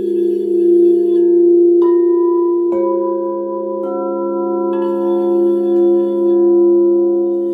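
Frosted quartz crystal singing bowls ringing in overlapping sustained tones with a slow pulsing swell. Further bowls are struck four times in a row, each adding a new note that rings on under the others.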